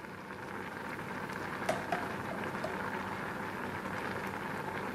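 A pan of sweet potato and corn in coconut milk boiling hard, a steady bubbling with scattered small pops.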